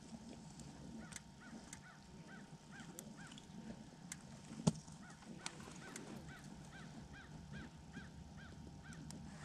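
A faint bird calling over and over: a steady series of short rising-and-falling notes, about three a second. Scattered faint clicks run alongside, with one sharper knock about halfway through.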